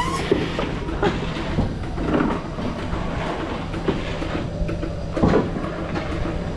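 Lely A5 milking robot at work attaching its teat cups: a steady mechanical hum with irregular clanks and knocks, the sharpest about five seconds in.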